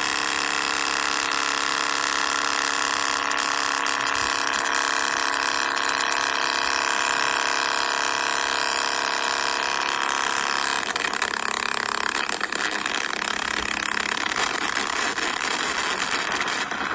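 iPhone 6 speaker playing back a recording jammed by an ultrasonic recorder jammer. It gives a loud, steady electronic noise made of many held tones that drowns out the recorded speech, turns rougher and noisier about eleven seconds in, and cuts off suddenly near the end.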